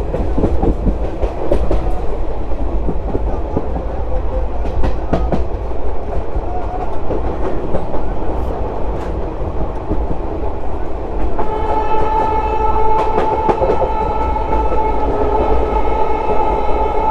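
Old ICF passenger coach running at speed, with wheel rumble and the clickety-clack of rails and joints. About two-thirds of the way in, a single steady horn note from the hauling WAP7 electric locomotive sounds and is held to the end.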